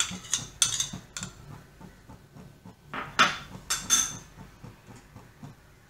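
A metal spoon clinking and scraping against an aluminium kadhai as ghee is scraped off into it: a quick run of clinks in the first second or so and a few more a little past three seconds in, then it goes quiet.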